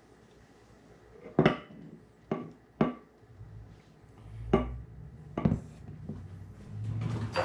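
Glassware being handled on a countertop: a glass blender jar and mason jar knocking and clinking as the jar is tilted upright and set down, about five sharp knocks starting about a second and a half in.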